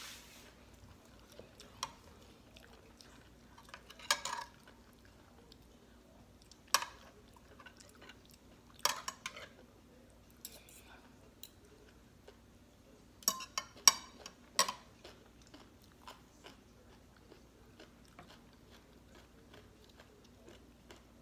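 Eating at the table: metal fork and spoon clinking against a plate in scattered sharp taps, the busiest run of clinks about two-thirds through, with chewing between.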